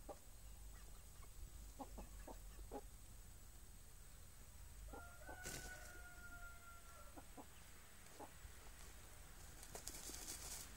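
Faint chickens: a few short clucks, then a rooster crowing once, a long, flat-pitched call of about two seconds held at one pitch, about five seconds in. Near the end there is a brief dry rustle as a dust-bathing hen flicks dust with her wings.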